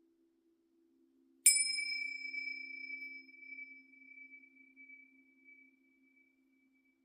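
A small metal chime struck once about a second and a half in, ringing at a high pitch and fading away over about five seconds. A faint low hum of two steady tones sounds under it at the start.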